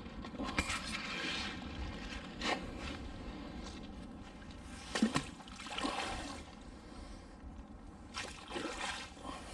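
Water splashing and dripping as a fishing magnet and its wet rope are hauled out of the canal, with a few short knocks and scrapes of the metal find and magnet being handled.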